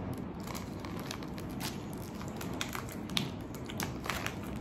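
Quiet scattered clicks and crinkles of a Twizzlers packet being handled and a piece of chewy licorice being bitten and chewed.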